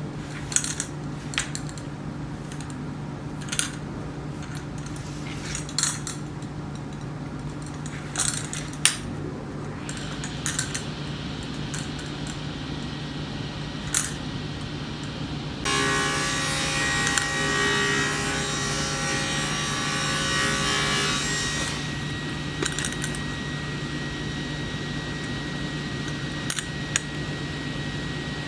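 Woodworking on a sword scabbard: scattered taps and clicks over a steady low machine hum, then, about halfway through, a louder rasping stretch of roughly six seconds.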